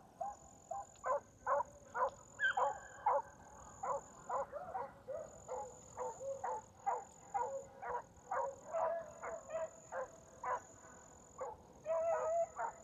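A pack of young beagles giving tongue as they run a rabbit: a rapid series of short chop barks, about two to three a second, with a few longer drawn-out bawls near the end.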